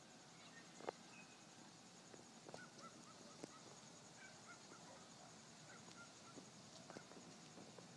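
Faint Weimaraner puppy whimpers: a string of short, high squeaks through the middle, with a few soft knocks, the loudest about a second in.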